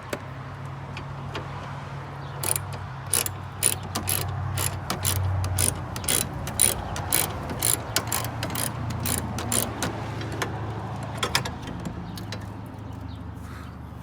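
Hand ratchet wrench clicking in irregular quick runs as hood bolts are worked loose, over a steady low hum.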